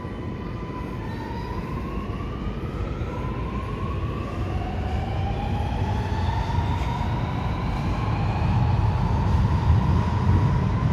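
A Sydney Metro Alstom Metropolis driverless train accelerating away from the platform. Its traction motors give a whine that climbs in pitch in several steps, over a low rumble that grows louder toward the end.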